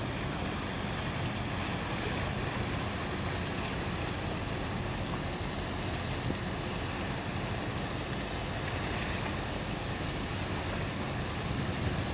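Steady wind rush on the microphone mixed with small waves washing against concrete breakwater blocks, an even, unbroken noise.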